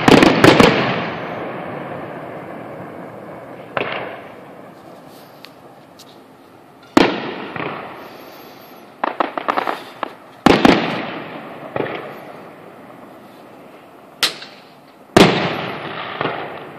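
Aerial fireworks shells bursting: sharp booms a second or a few seconds apart, each trailing off in a long rolling echo, with a quick run of crackling pops about nine seconds in.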